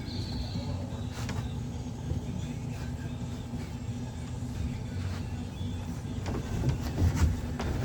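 A motor engine running steadily, with a few sharp knocks over it, typical of wall framing work.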